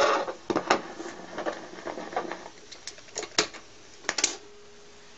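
Turntable stylus riding a groove cut into an old CD: the playback ends and the needle gives scattered clicks and crackles. About four seconds in there is a short cluster of louder clicks as the tonearm is lifted off the disc.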